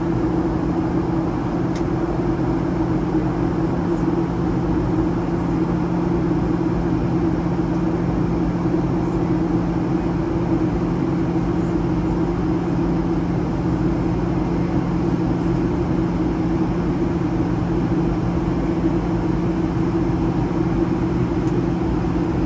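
Steady cabin drone of a Boeing 737 airliner: a constant low engine hum with a couple of held tones under the rush of airflow, heard from inside the cabin.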